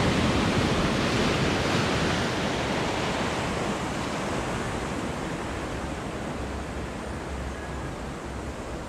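Small waves breaking at the shoreline and foam washing over the sand: a steady rush of surf, loudest at the start and slowly dying away.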